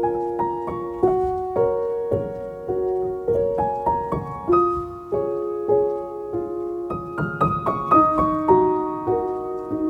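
Background music: a gentle piano piece of slow chords and melody notes, each note struck and left to ring.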